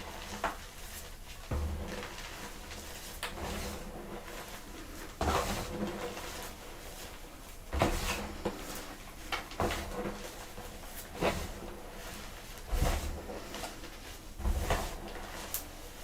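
Blocks of gym chalk being crushed, giving about ten sharp crunches at irregular intervals of a second or two, with soft powdery crumbling between.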